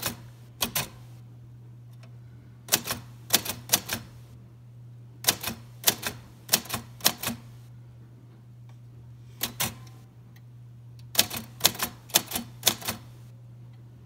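1953 Royal Quiet De Luxe portable typewriter being typed one-handed: short runs of sharp key strikes, a few to about eight at a time, separated by pauses of a second or two.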